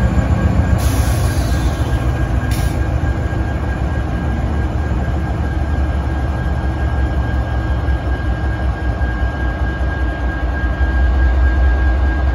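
Freight diesel locomotives rolling slowly past close by, including a CN SD75I with its EMD 710 V16 engine. The engines rumble heavily under a steady high whine, with two short hissing bursts a second or two in. The rumble grows louder near the end as the CN unit's cab comes level.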